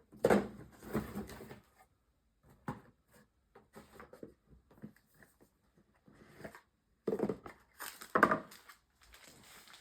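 Trading cards being handled and sorted by hand: irregular rustles, slides and light taps of card stock, louder in a cluster near the start and again about seven to eight seconds in.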